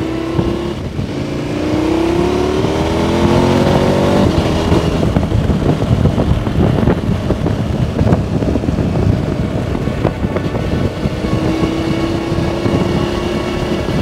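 KTM 1290 V-twin motorcycle engine accelerating, its note rising steadily for about three seconds, then drowned by heavy wind rumble on the rider's microphone at speed; a steady engine note comes back near the end.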